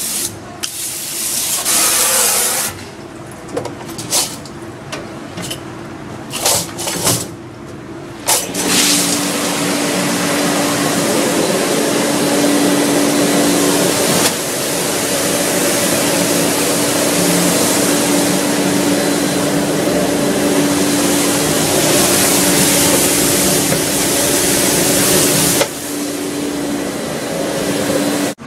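Dishes being washed by hand at a sink: short bursts of splashing water and handling for the first several seconds, then a tap running in a steady stream with a steady low tone for about seventeen seconds, shut off near the end.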